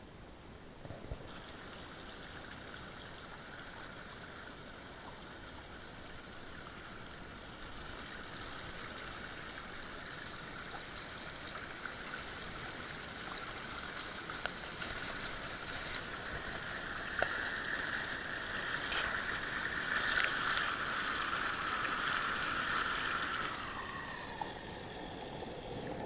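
Small forest creek pouring over mossy rocks in a little waterfall: a steady rushing and splashing that grows louder as the microphone nears the falling water. Near the end the sound turns muffled and lower as the microphone goes under the churning water of the pool.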